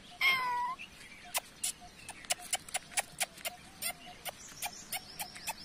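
A puppy gives one short high whine, about half a second long and dipping at the end. Then comes an irregular run of sharp crunching steps on gravelly dirt, about three to four a second.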